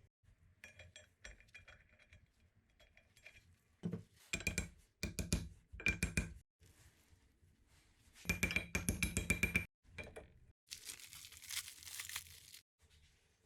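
Rapid metallic clinking and rattling of tools and engine parts being handled, in two loud spells, followed by a stretch of hiss near the end.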